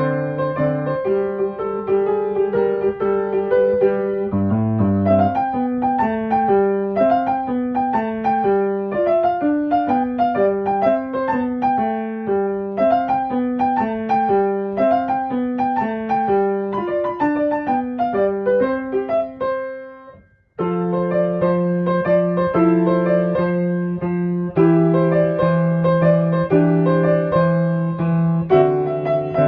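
Background piano music: a melody of separate notes over held bass chords. It fades out about two-thirds of the way through, is silent for half a second, then starts again.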